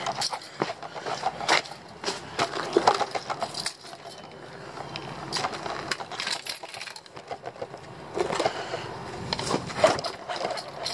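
Rear-wheel-drive RC car heard from a camera on its own chassis, rattling and clattering as its knobby tyres run over rough concrete. The clatter is busiest in the first four seconds and again from about eight seconds in, quieter in between.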